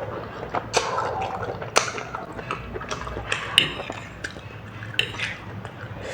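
A person eating close to the microphone: wet chewing and smacking mouth sounds with many sharp clicks.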